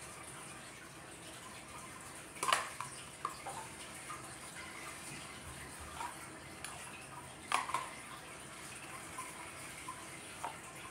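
Light clicks and taps of eating from a small plastic cup, with two sharper clicks about two and a half and seven and a half seconds in, over a steady faint hiss.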